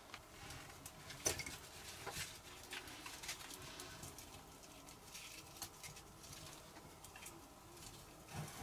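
Small dry kindling twigs crackling and snapping irregularly as they are handled and laid on hot embers, with one sharp snap about a second in.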